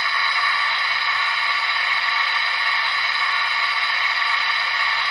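Sanding sound effect from the ESU LokSound 5L decoder of a Gauge 1 brass model of a Bavarian D XII (class 73) steam tank locomotive: a steady hiss of sand being blown onto the rails, played through the model's loudspeaker.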